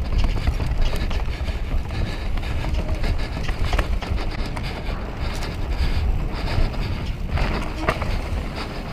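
Mountain bike riding down a dirt trail: a steady rumble of wind on the microphone and tyres rolling over the ground, with a few sharp rattles and knocks from the bike over roots, the clearest near the end.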